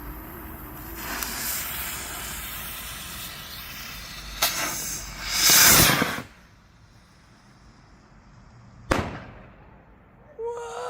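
Firework rocket: a fuse hisses for about four seconds, a sharp pop follows, then a loud rushing whoosh of about a second as the rocket launches, the loudest part. About nine seconds in comes a single sharp bang as it bursts in the air.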